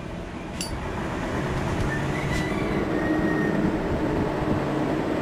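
Steady rumble of a heavy vehicle on the road, slowly growing louder. About half a second in there is a single sharp click of a cigarette lighter.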